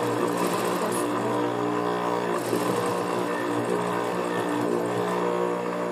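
JUKI industrial sewing machine: its motor hums steadily while it stitches suede in two short runs of about a second each, one near the start and one about halfway through.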